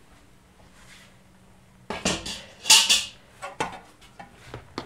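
Metal cookware clattering: pots, a lid and a ladle clanking against each other, quiet at first, then a quick run of sharp clanks a couple of seconds in, loudest around the middle, followed by a few scattered knocks.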